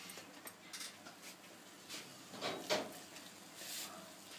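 A few scattered light knocks and rubbing sounds of kitchen utensils being handled, with a louder knock about two and a half seconds in.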